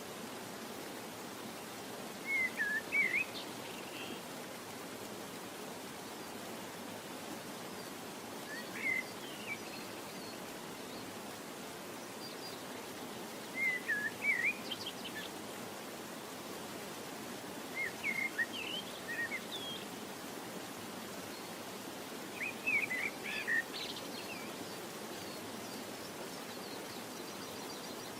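A small bird chirping in five short bursts of quick high chirps spaced a few seconds apart, over a steady background hiss.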